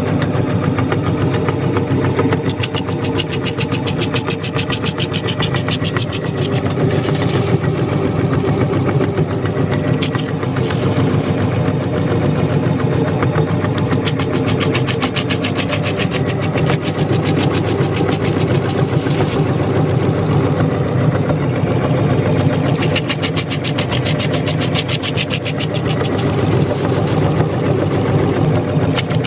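Electric meat grinder running steadily with a rapid, fine rattle as it grinds a large crunchy cookie.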